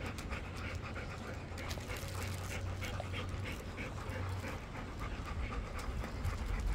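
Golden retrievers panting, quick and rhythmic, in the heat.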